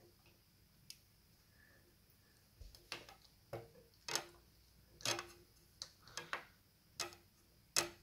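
Small sharp clicks and taps of a plastic fitting being pressed and knocked onto the end of a gel blaster barrel tube. About ten clicks at uneven spacing, mostly in the second half, a few with a short ring.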